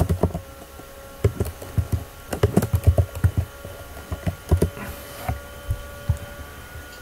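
Computer keyboard typing in quick bursts of keystrokes, thinning to a few single key presses after about four and a half seconds.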